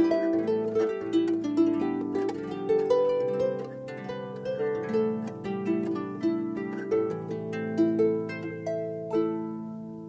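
Background instrumental music: quick notes that start sharply and die away, with a last chord ringing out and fading near the end.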